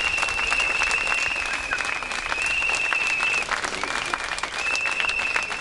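A crowd applauding steadily, dense clapping, over repeated long, high whistle blasts held a second or two each with short breaks.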